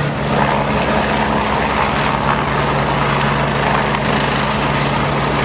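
Steady engine noise: a continuous rumble with a low, even hum.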